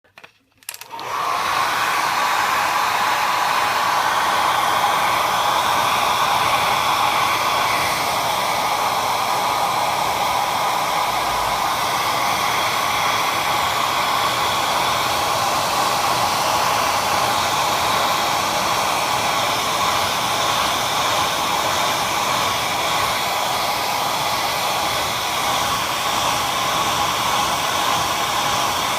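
Hair dryer switched on with a click about a second in, then running steadily with an even rushing blow.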